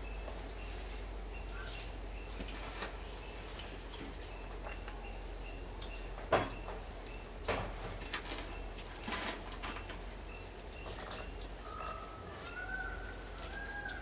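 Outdoor ambience of a steady high insect drone with faint short chirps repeating about every half second. Between them come a few sharp taps, the loudest a little before the middle, which fit a greater coucal's bill pecking food off a stone bird table. Near the end a bird gives a short whistled note.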